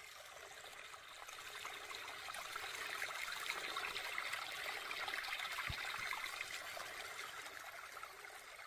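Water running and pouring through a reservoir's flood control gate: a steady rushing, trickling hiss that swells a little through the middle.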